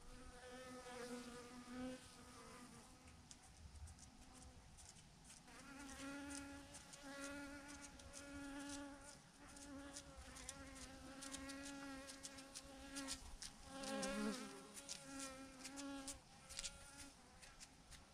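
Honeybees buzzing around a swarm cluster on a branch: several wavering hums that swell and fade as bees fly past, loudest about two thirds of the way in, with faint scattered clicks.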